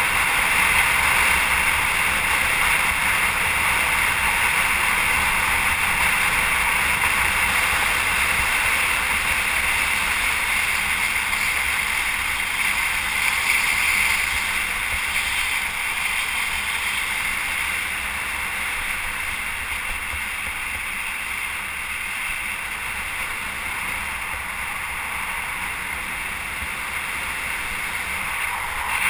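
Steady rushing noise with a low rumble underneath, easing slightly in the second half.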